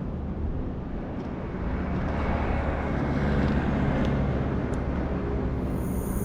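Steady low engine rumble with a faint hum, growing slightly louder toward the middle.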